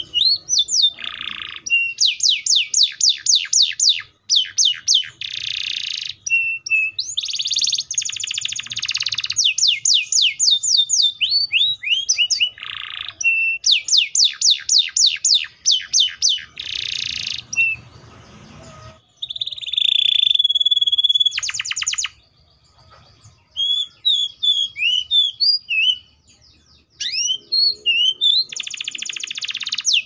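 Canary (Serinus canaria) singing a long song of fast trills, each made of rapidly repeated sweeping notes, broken up by buzzy rolls. About twenty seconds in there is a single held whistle, and the song pauses briefly twice near the end.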